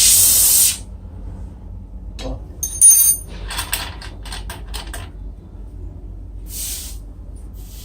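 A loud, steady hiss of escaping gas cuts off abruptly just under a second in. A run of light metallic clicks and clinks follows, then a brief, softer hiss near the end.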